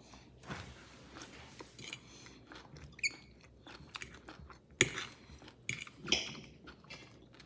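A person chewing a mouthful of string bean and beef adobo, with soft wet smacks and small clicks throughout; two sharper clicks come about five and six seconds in.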